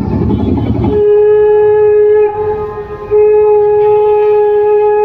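A wind instrument sounding long, steady held notes at one pitch, loud, with a brief break about two seconds in. A low rumble fills the first second before the notes begin.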